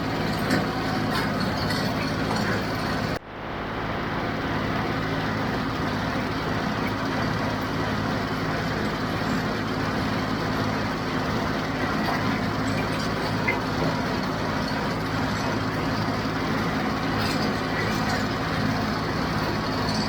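John Deere 5055 tractor's diesel engine running steadily under load while it drives a John Deere 348 square baler. The sound drops out sharply for a moment about three seconds in, then comes back.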